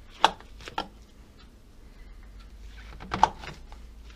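A few short, sharp knocks and clicks of a cluster of oyster mushrooms being handled and pulled apart on a plastic cutting board: three in the first second, then a pair about three seconds in.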